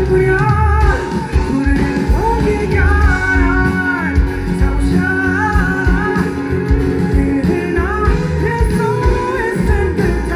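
Live concert music: a band playing a rock-style song with a singing voice over guitar, bass and drums, loud and continuous.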